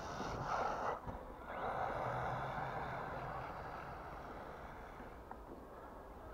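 WLtoys A929 RC truck running across snow in two bursts of throttle, the second longer and slowly fading as the truck drives away.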